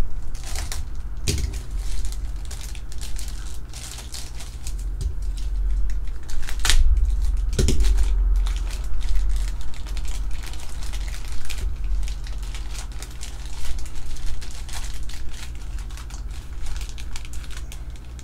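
Plastic mailer envelope being torn open and crumpled by hand: a dense run of crinkling and crackling with several sharper rips.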